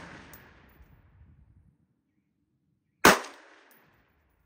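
A single rifle shot from a Sons of Liberty Gun Works M4-76, a 5.56 mm AR-15-pattern rifle with a muzzle brake, about three seconds in, with a short echo dying away. At the start the echo of an earlier shot is fading out.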